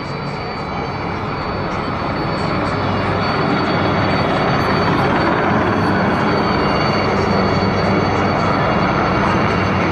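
A formation of Aérospatiale Alouette III helicopters flying past: a steady rotor drone with a thin, high turbine whine. It grows louder over the first few seconds as they approach, then holds.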